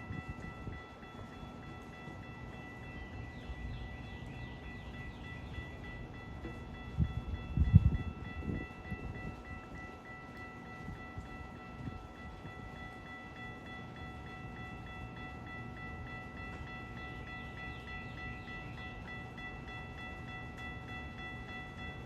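GO Transit commuter train running through the station with a steady high whine and rumble. A loud low bump comes about eight seconds in.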